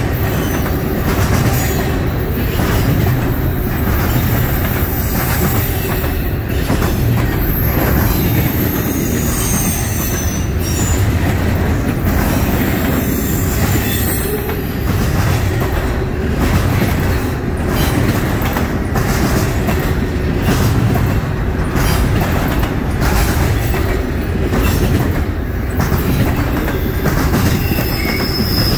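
Double-stack intermodal freight cars rolling past close by: a steady heavy rumble of steel wheels on rail, with short high-pitched wheel squeals coming and going.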